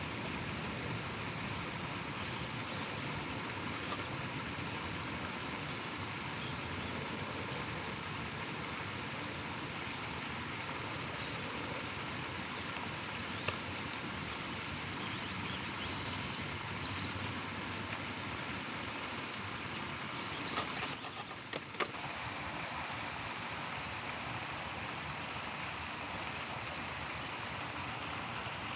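Axial SCX24 Deadbolt micro RC crawler's small electric motor and gears whining steadily over a constant hiss as it crawls over rocks. A few sharp clicks and scrapes come about halfway through and again about three-quarters through.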